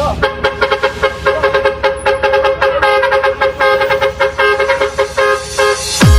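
Truck horn sample honking a two-note chord in short rhythmic blasts over the beat of a dance remix. A loud falling bass sweep comes just before the end.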